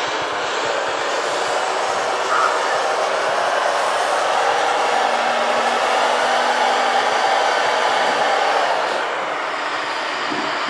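Electric motors and gearing of radio-controlled model construction trucks running steadily with a continuous noisy drone. It grows louder for several seconds in the middle and eases back near the end.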